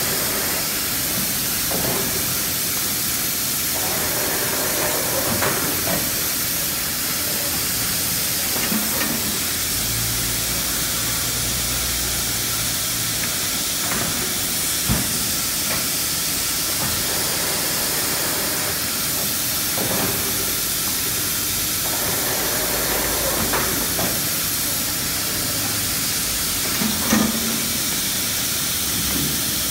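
Steady hiss of machinery in a workshop running an automatic screen-printing machine, with a few sharp knocks as table tennis table tops are laid down and lifted. A low hum comes in for a few seconds around the middle.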